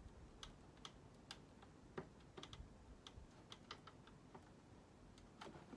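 Faint, irregular light clicks and taps of SATA cables and their plastic connectors being handled inside a PC case.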